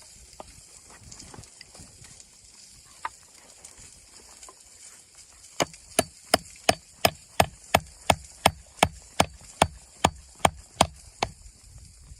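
A rapid, even series of about sixteen sharp knocks, around three a second, starting about five and a half seconds in: wood being struck with a tool.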